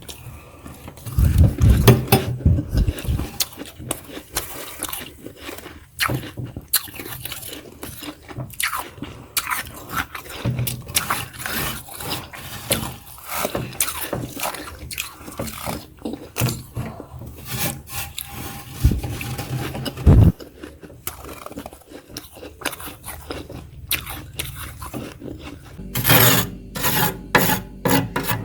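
Thick freezer frost being scraped off in many short rasping strokes, with a few dull knocks about two seconds in and again around two-thirds of the way through; the strokes come faster and louder near the end.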